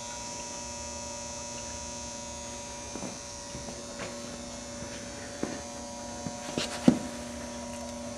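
HHO gas generator switched on and running with a steady electrical hum. A few light knocks and clicks sound over it, the loudest about seven seconds in.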